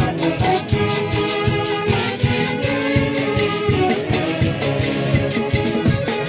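Live music from a Peruvian orchestra playing a dance tune, with held melody notes over a steady percussive beat.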